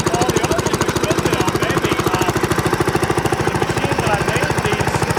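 A small engine running steadily with a fast, even pulsing beat.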